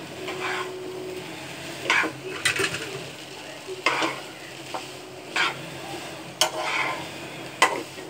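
Steel spatula scraping and turning stir-fried noodles in a nonstick wok, about one stroke a second with a few sharp clicks against the pan, over a steady low frying sizzle.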